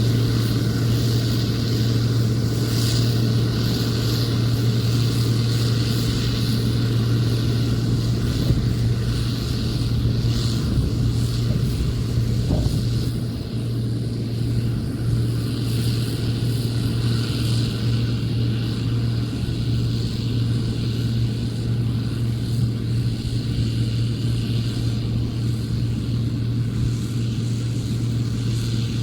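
Combine harvester running steadily while cutting soybeans, a constant low engine hum with no change in pitch.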